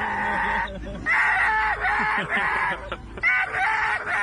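Loud, repeated animal calls, several overlapping, each about half a second long, following one another without a break.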